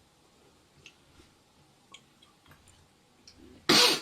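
Soft, wet lip-smacking and licking sounds of a mouth close to the ear, a handful of small separate smacks over about three seconds, then one sharp, loud sniff near the end.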